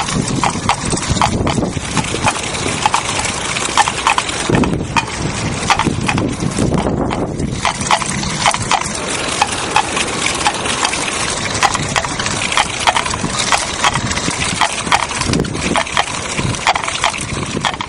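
Two coconut-shell halves knocked together by a Trotify wooden gear mechanism driven by a bicycle's front wheel, clip-clopping like a trotting horse's hooves. The knocks come two to three a second in an uneven trot rhythm over steady street and tyre noise.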